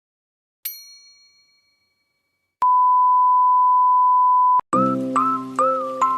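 A single bell-like ding that rings away over about a second, then a steady two-second beep that stops abruptly, then cheerful music with glockenspiel-like notes starts near the end.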